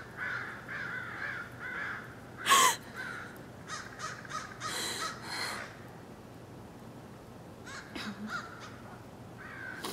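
Birds calling repeatedly in short harsh calls, the loudest about two and a half seconds in, with a quieter stretch in the middle before more calls near the end.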